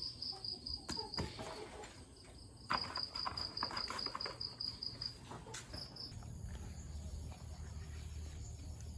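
Cricket chirping in high, rapid pulsed trills, in two main runs broken by a pause of about a second and a half, with a few light knocks in between. A low steady hum comes in about two thirds of the way through.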